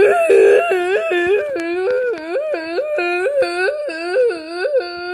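A high voice singing wordlessly, warbling up and down between two notes about three times a second, a loud, deliberately poor attempt at singing.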